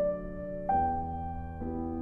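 Slow piano music: sustained notes and chords, with a new one struck at the start, another about two-thirds of a second in, and another near the end.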